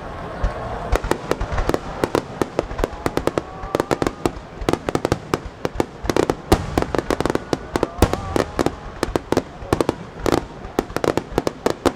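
Rapid-fire aerial fireworks barrage, a starmine: many sharp bangs and crackling bursts several times a second, with whistling shells gliding in pitch during the first few seconds.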